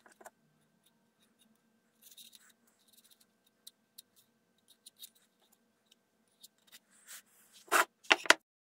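Metal palette knives scraping and clicking as filler putty is spread on a wooden rudder and worked on a mixing plate: faint scattered scratches and light ticks, then two louder short rasps near the end.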